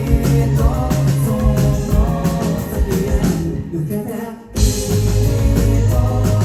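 Rock band playing live, loud and full, then thinning out and stopping for a moment about four seconds in before the whole band comes back in together.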